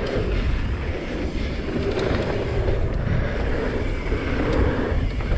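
Wind buffeting the microphone of a GoPro action camera on a mountain bike descending a dirt trail, mixed with the steady rush of the tyres rolling over the ground.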